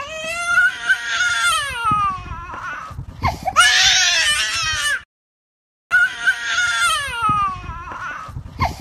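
High-pitched crying voice, wailing in long, wavering cries that fall in pitch, growing louder and harsher a few seconds in. The sound cuts out completely for under a second about five seconds in, then the wailing starts again.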